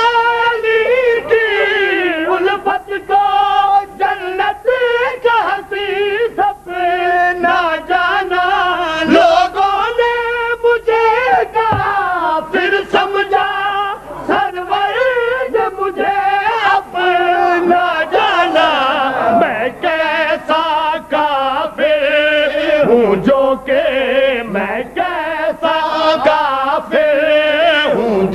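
Male voice singing a devotional qaseeda in long, wavering, ornamented notes without clear words, the pitch sliding and shaking through each drawn-out phrase.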